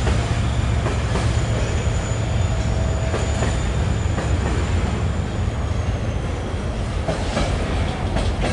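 Freight train cars rolling past with a steady low rumble and wheels clacking over the rail joints. A thin, high wheel squeal rings on and fades out about two-thirds of the way through.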